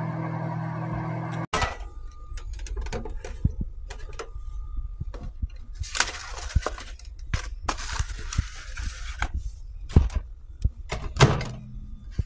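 Microwave oven running with a steady hum that stops abruptly after about a second and a half. Then irregular clicks, knocks and papery rustles as a pot pie in its cardboard box is slid out of the microwave and set down, with the sharpest knocks near the end.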